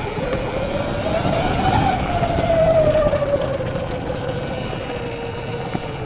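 Electric dirt bike's motor whining: the whine rises in pitch over the first two seconds, then slowly falls as the throttle eases. Under it runs a steady rumble of wind and knobby tyres on the trail.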